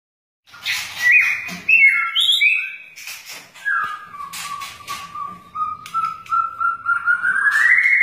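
White-rumped shama singing: a run of short, varied whistled notes with sharp clicks between them, then one long whistle that dips in pitch and slowly rises near the end.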